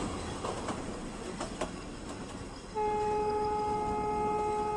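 A Nilgiri Mountain Railway train running along the track, then one steady horn blast of about two seconds from the locomotive, starting a little past halfway through.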